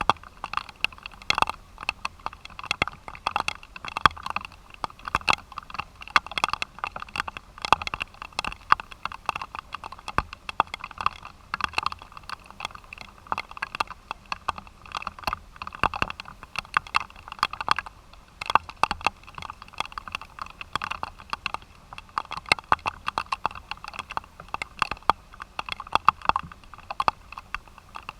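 Rain pattering close to the microphone: dense, irregular taps over a soft hiss.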